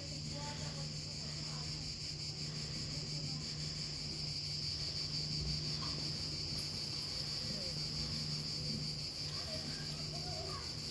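Cicadas singing: a continuous, steady high-pitched buzzing chorus.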